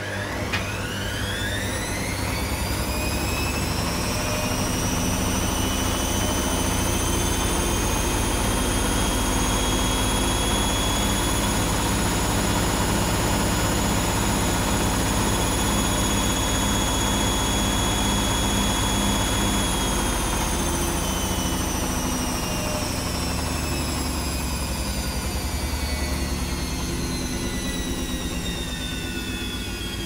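Arçelik 5900E front-loading washing machine's drum motor whining as it spins up to a high spin speed with a single wet bath towel as an unbalanced load. The pitch climbs quickly over the first few seconds, holds steady for about fifteen seconds, then slowly falls as the drum coasts down, over a low hum.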